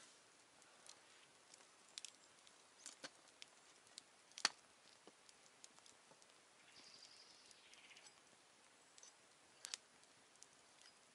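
Quiet crackling of a small wood campfire: scattered sharp pops and clicks over near silence, the loudest about four and a half seconds in, with a brief soft hiss a little before eight seconds.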